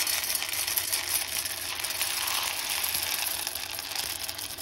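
Freshly roasted coffee beans poured in a steady stream into a glass measuring jug, a dense continuous rattle of beans clattering against the glass and each other.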